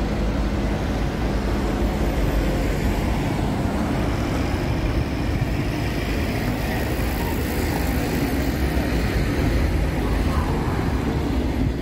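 City street traffic: cars driving past on a multi-lane road, a steady noise of engines and tyres.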